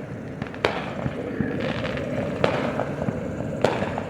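Fireworks going off: several sharp bangs, roughly one a second, over a steady noisy background.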